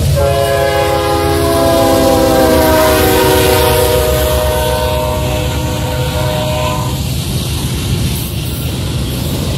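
Norfolk Southern diesel freight locomotive's multi-tone air horn sounding one long blast as it passes, its pitch dropping slightly as it goes by, then cutting off about seven seconds in. Beneath it runs the steady low rumble of the locomotives and the rolling intermodal cars.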